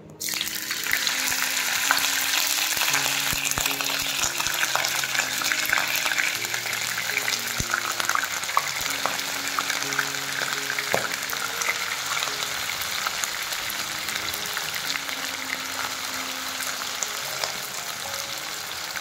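Paneer cubes sizzling and crackling in hot oil in a non-stick pan. The sizzle starts suddenly as the cubes hit the oil and slowly eases off as they fry.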